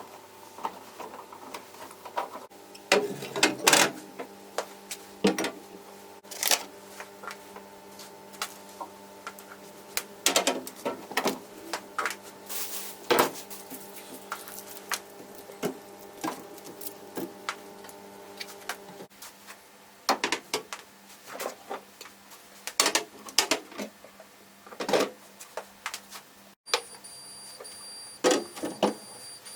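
Irregular clicks, taps and knocks of kitchen containers, jars and lids being handled and set down, over a steady hum that stops about two-thirds of the way through.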